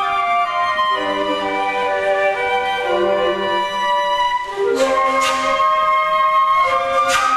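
Flute choir playing held chords in several parts, the harmony shifting every second or so. Two sharp, breathy accented attacks come in, about five and seven seconds in.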